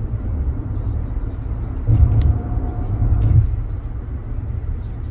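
Road and engine noise inside a car's cabin at highway speed: a steady low rumble that swells louder for about a second and a half in the middle.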